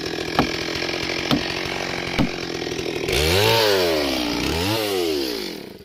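Stihl MS 382 two-stroke chainsaw running, with three sharp clicks in the first couple of seconds. About halfway through it is revved harder twice as it saws into the wood, its pitch rising and falling each time, then the sound cuts off abruptly near the end.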